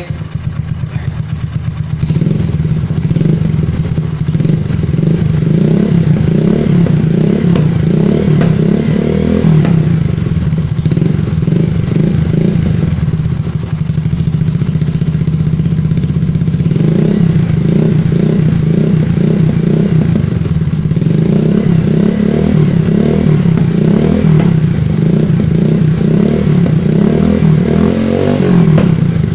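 125 cc motorcycle engine with an aftermarket DM exhaust, heard close to the exhaust outlet. It idles for a moment, then is revved up and let back down again and again, with a steadier stretch midway.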